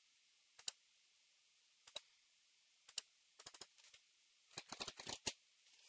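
Computer mouse and keyboard clicks: a double click, then single clicks about a second apart, then quick runs of clicks near the end.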